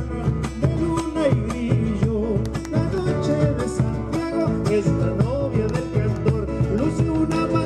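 Live Argentine gato folk song: a man singing to strummed acoustic guitar, with a bombo legüero drum beaten with sticks keeping the beat.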